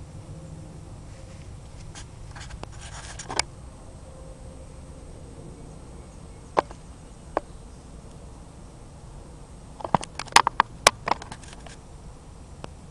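Onion being crushed underfoot by Bates Enforcer boots: a few scattered sharp crunches, then a quick cluster of louder ones about ten seconds in.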